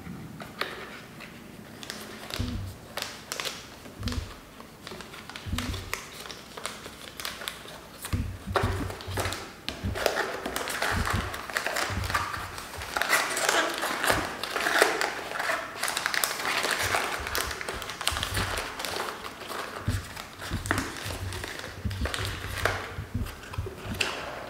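Foil tea sachets rustling and crinkling as fingers flick through them in a cardboard box, with scattered light taps and knocks of handling; the crinkling is densest in the middle stretch.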